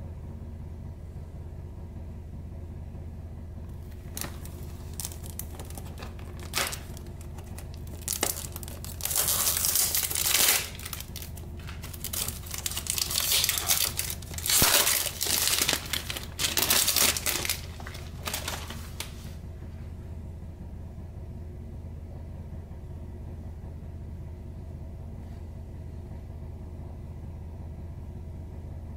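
Packaging of a perfume box crinkling and tearing as hands unwrap and open it. It comes in irregular bursts from about four seconds in until about nineteen seconds in.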